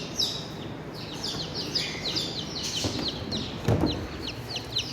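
Newly hatched chicks peeping: quick, high chirps, each falling in pitch, several a second. There is a dull bump about three and a half seconds in.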